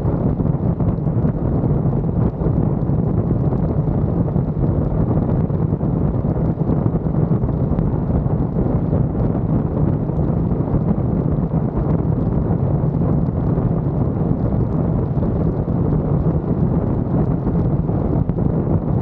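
Wind buffeting the microphone of a roof-mounted camera on a moving vehicle, over a steady low drone of engine and tyres on a gravel road.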